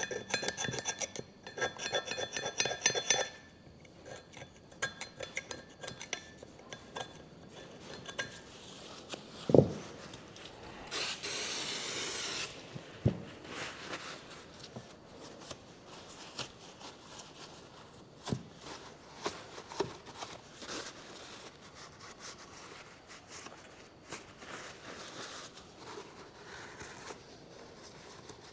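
Scraping and rubbing on a Toyota Hilux wheel hub's gasket face, cleaning off old gasket material. The first three seconds are a rapid run of metallic scraping strokes; after that come scattered lighter scrapes and clicks, a sharp knock about ten seconds in, and a brief hiss about eleven seconds in.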